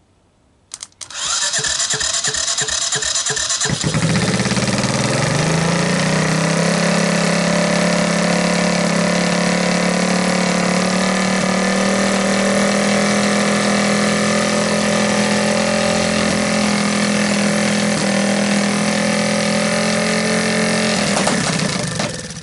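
Honda ATC200M single-cylinder four-stroke engine cold-starting on choke: about three seconds of starter cranking, then it catches and runs with a rumble, a sign that the timing is right. Its speed creeps up over the first couple of seconds and holds steady, then it dies out near the end when the choke is turned off, because of a vacuum leak at the carburettor.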